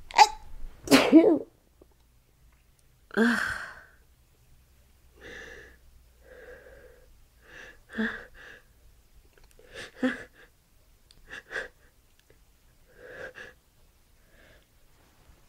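A woman in a sneezing fit: a loud sneeze about a second in and another a couple of seconds later. Softer short breathy sounds follow every second or two.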